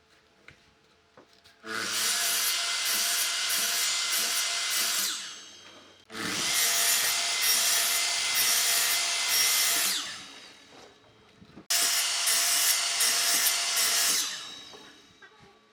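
A hand-held power tool working wood, run in three bursts of about three to four seconds each, with a steady whine under the noise; each burst trails off over about a second as the tool slows after release.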